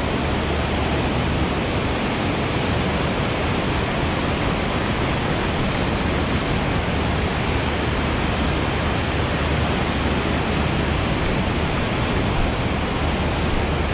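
Ocean surf breaking and washing up a sandy beach, a steady rushing noise with no let-up.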